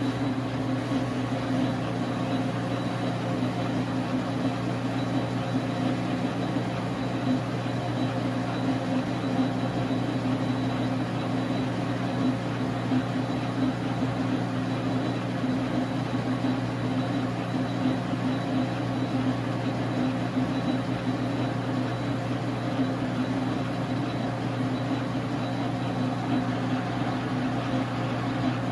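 A 1989 Dar Sin 12x37 gap bed lathe running steadily, its motor and gearing giving an even hum that does not change.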